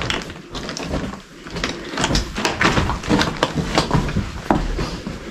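Footsteps crunching and scraping over loose slate rubble, with stones knocking and clattering underfoot in an irregular run of sharp clicks, several a second.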